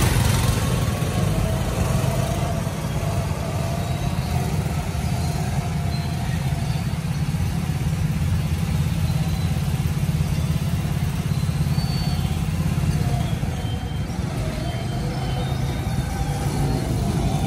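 Go-kart engines running as the karts drive around the track, a steady low drone with a pitch that rises and falls.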